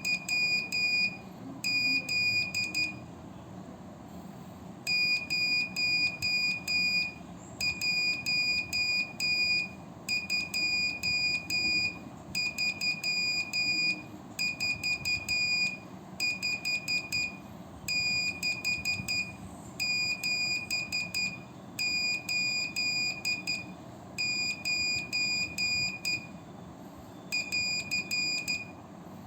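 Morse code sidetone from a CW Pixie transceiver, hand-keyed with a straight key: a high-pitched beep sounding in short dits and long dahs, sent slowly one character at a time with a pause after each.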